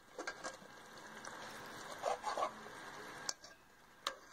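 A metal spoon stirring watery fish curry in a cooking pot, with a few sharp clicks of spoon against pot over a steady low simmer. There are two short squeaky sounds about two seconds in.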